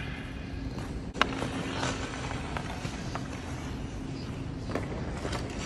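Sharp clacks of a hockey stick striking a puck on the ice, the loudest about a second in and another near the end, over a steady low hum.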